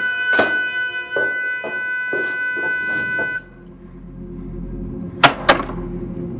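Eerie film sound design: a high held tone with a run of quick clicks, which cuts off suddenly about three and a half seconds in. A low rumble follows, with two sharp cracks close together near the end.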